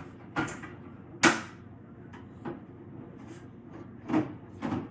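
Several short, sharp knocks and clacks as the parts of a Dremel saw station are handled and set down, the loudest about a second in.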